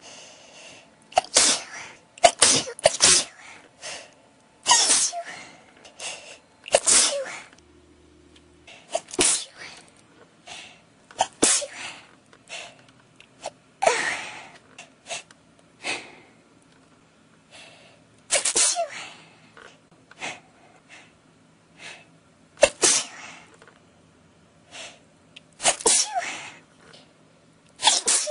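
A person in a sneezing fit: well over a dozen sharp sneezes. The first few come about a second apart, some in quick pairs, and later ones come every two to four seconds.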